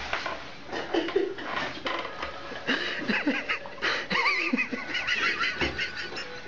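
People laughing in short bursts, one voice high and wavering, with scattered rustles and knocks.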